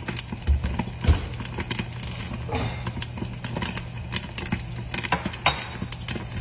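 Popcorn kernels popping in a covered pan of caramel popcorn on the stove: sparse, irregular pops with a slightly louder one near the end, as the batch is almost done.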